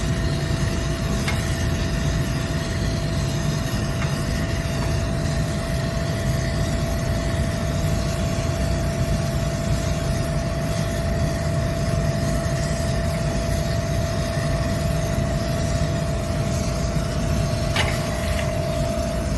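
Steady machine noise: a low rumble with a constant hum and a few faint light clicks.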